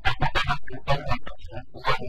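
A man preaching in Hausa, speaking in quick, emphatic bursts.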